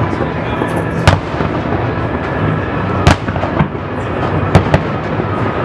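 Aerial fireworks shells bursting: sharp booms about a second in, a louder one around three seconds in, and two in quick succession later, with a steady din between them.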